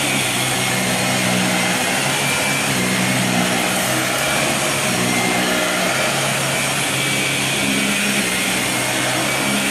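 Dyson DC40 upright vacuum cleaner running on max suction as it is pushed over carpet: a steady rush of air with a low motor hum that wavers in and out.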